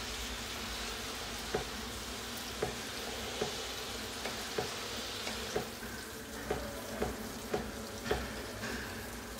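A knife chopping tomatoes on a wooden cutting board: about ten sharp taps, coming closer together in the second half. Behind them is the steady sizzle of garlic and chilies frying in a pan.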